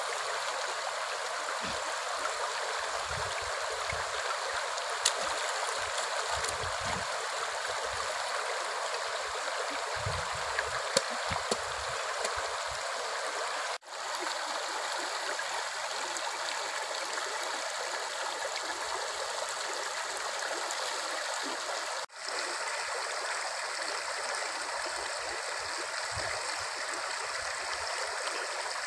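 Shallow stream running over rocks, a steady rush of water, with a few small splashes and sharp clicks in the first half as a bird is washed by hand in it.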